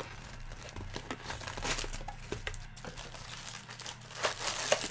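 Foil-wrapped trading-card packs crinkling and rustling as hands open their cardboard hobby box and pull them out, in irregular scratchy handling noises that grow busier and louder near the end.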